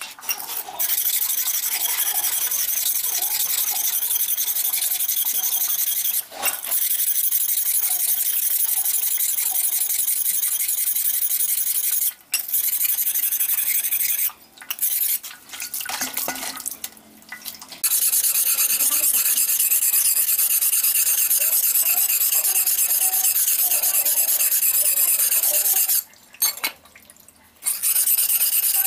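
Steady abrasive rubbing against the hatchet or its handle, as in hand sanding or filing, running in long stretches broken by a few short pauses.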